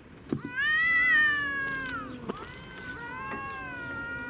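Cat yowling in a face-to-face standoff with another cat, a sign of a territorial confrontation: one long drawn-out call that rises and then slowly sinks, followed at once by a second, lower one.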